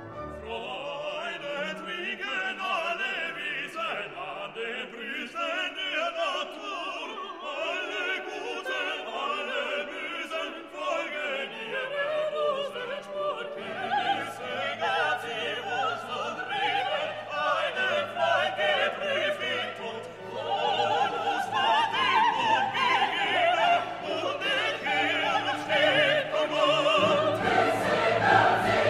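Classical orchestral music with operatic singing voices and a choir, growing louder about two-thirds of the way through.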